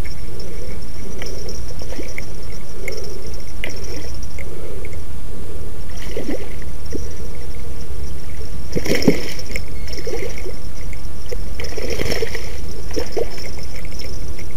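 A hooked fish thrashing and splashing at the water's surface as it is played in toward a landing net, with several splashes, the sharpest about nine seconds in and more around twelve seconds. A steady low rumble runs underneath.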